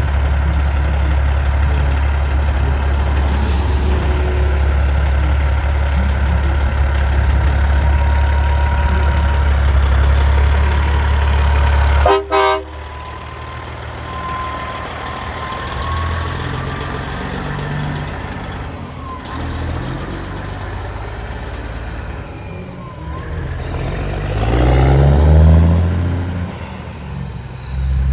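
Diesel engine of a classic long-hood Peterbilt-style semi tractor running with a steady deep drone, a short horn toot about twelve seconds in, then the engine revving up in rising steps as the truck pulls away through the gears.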